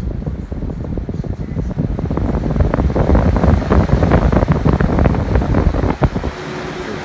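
Vornado 723DC circulator fan running on test after repair, its airflow buffeting the microphone and growing stronger. About six seconds in the buffeting stops and a steady, even motor hum remains.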